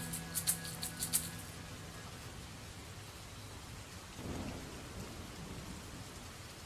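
Steady rain falling in a thunderstorm, with a brief low rumble of thunder about four seconds in. The last notes of a song fade out in the first two seconds.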